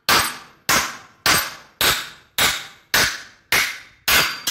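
Hammer striking a 1/4-inch steel weld coupon on a steel welding table: eight sharp metallic blows with ringing, a little under two a second. It is a destructive break test of a MIG fillet weld welded on one side only, and the upright plate has broken off by the last blows.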